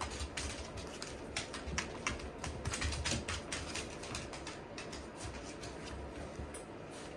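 Shiba Inu puppies' and their mother's claws clicking irregularly on a hard floor as they move around, with soft low thuds of paws and steps; the clicking is busiest for the first three seconds or so and thins out after.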